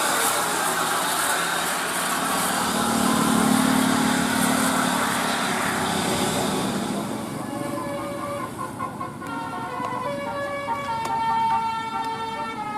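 A bus passing with a loud rushing noise, then, from about seven seconds in, its Basuri 'telolet' multi-trumpet horn plays a tune of held notes that step from pitch to pitch.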